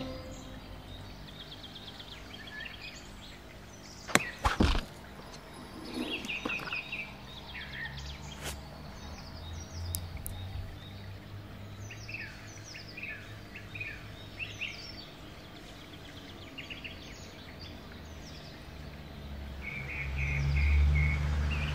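Outdoor ambience of birds chirping in short, scattered calls over a steady low rumble. Two sharp clicks about four seconds in, and the rumble swells near the end.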